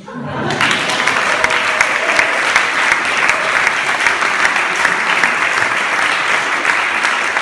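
A large audience clapping, breaking out about half a second in and then holding steady and loud.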